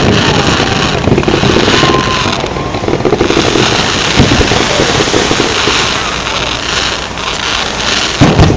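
Fireworks display: a steady crackle of bursting fireworks, with one loud boom near the end.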